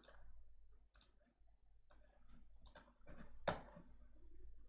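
Faint computer mouse clicks, about five spread out, the loudest about three and a half seconds in.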